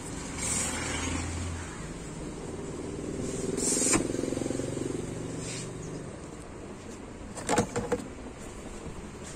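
Cardboard rustling and plastic toy-stroller parts knocking and clattering in their box as they are handled, with the loudest knocks near the end. Under this, the hum of a passing motor vehicle swells to a peak about four seconds in and fades away.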